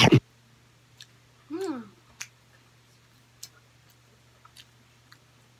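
Close-miked eating sounds: a loud, sharp smack at the very start as fingers are licked, a short hummed "mm" that bends in pitch about a second and a half in, then soft scattered mouth clicks of chewing over a steady low hum.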